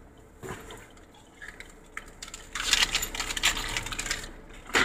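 A hand rummaging in a handbag: a quick run of small metallic clinks and jingles, starting about halfway through.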